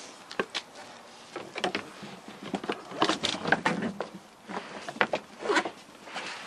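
Heavy rubber floor mat being peeled up off the floor and rolled back by hand: irregular scrapes, rustles and soft knocks, with louder scrapes around the middle and near the end.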